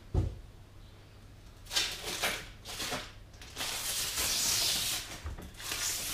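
Clear plastic wrap being peeled and pulled off a new computer case. There is a low knock at the start, then short crinkly rustles from about two seconds in, turning into a denser, continuous rustle from about three and a half seconds in.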